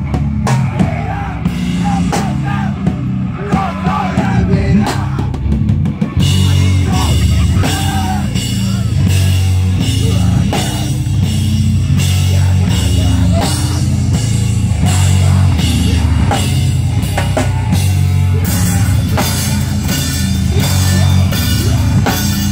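Live heavy rock band playing loud, with distorted guitar and bass over a drum kit. About six seconds in the drummer comes in on the cymbals and the sound fills out.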